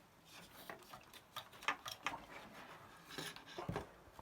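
A Commodore MPS-801 dot-matrix printer being handled: scattered light clicks, rustles and knocks against its casing, with a duller thump near the end.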